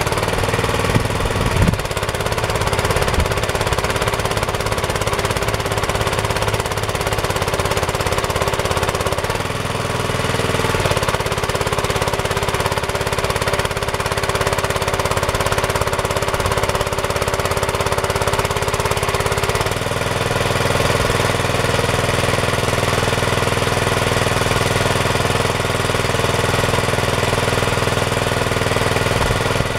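Homemade minitractor's small engine running steadily under load, together with an electric motor turning an earth auger into the soil. About twenty seconds in, the low drone gets heavier and steadier as the auger is raised out of the hole.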